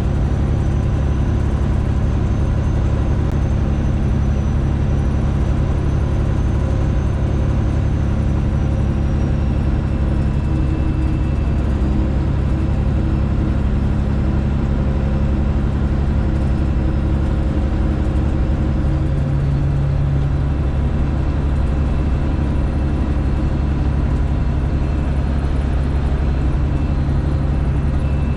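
Straight-piped Detroit Diesel engine of a Freightliner Classic XL semi truck running steadily on the road, loud and even, with a faint high whine that drifts slowly lower.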